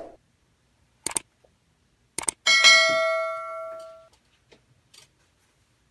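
Two short clicks, then a single bell-like metallic ding that rings with several pitches at once and fades away over about a second and a half.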